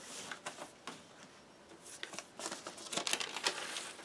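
Rustling and scraping of a paper LP inner sleeve and vinyl record being handled, in irregular bursts that grow louder and denser about three seconds in.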